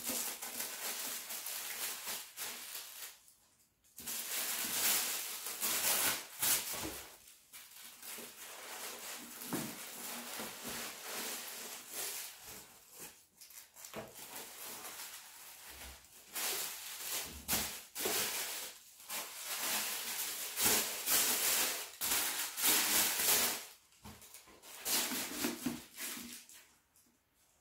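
Tissue paper rustling and crinkling in irregular bursts as it is unfolded and pulled from a cardboard shoe box, with occasional soft knocks of the box being handled.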